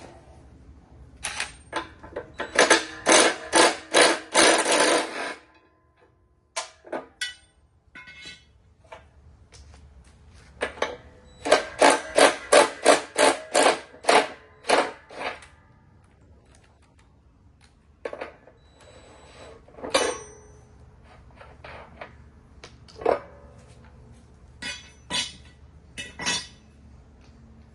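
Hammer blows in two quick runs of about a dozen strikes each, several a second, followed by scattered single knocks.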